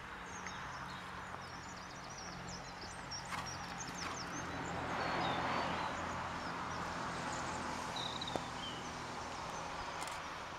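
Open-air ambience: small birds chirping, a steady low hum underneath, and a swell of rushing noise that peaks about halfway through.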